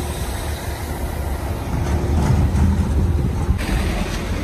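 Coach bus engine idling with a steady low rumble, with a short hiss about three and a half seconds in.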